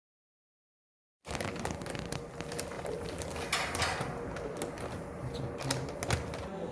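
Powder filling machine running, starting about a second in: a steady mechanical noise with many sharp clicks and clacks.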